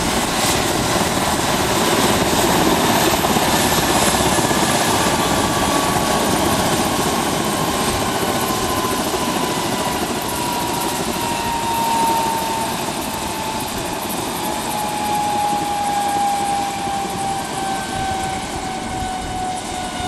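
Eurocopter EC135 helicopter's turbines winding down on the pad after landing, with the main rotor still turning: a steady engine rush under a whine that falls slowly in pitch throughout.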